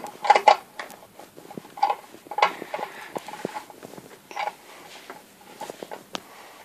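Handling noises: scattered light clicks, taps and rustles as small objects are picked up and moved about.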